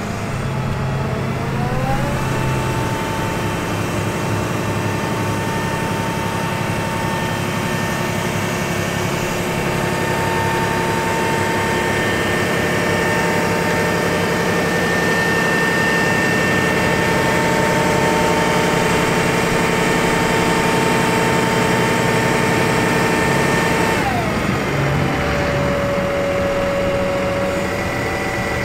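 Truck engine and hydraulic system of an Altec DC47TR digger derrick running steadily while the boom is operated; the engine speeds up about two seconds in, holds an even pitch, and drops back down about four seconds before the end.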